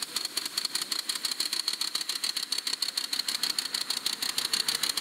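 Live steam model 4-4-0 locomotive running under steam, its exhaust chuffing in a fast, even beat over a steady hiss.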